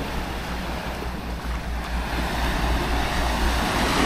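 Surf washing onto a sandy beach, with wind buffeting the microphone as a steady low rumble.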